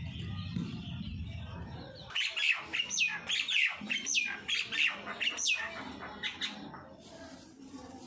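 Common mynas calling: a run of loud, sharp whistled notes that slide steeply downward, about two a second, starting about two seconds in and fading out after about six. A low rumble comes before the calls start.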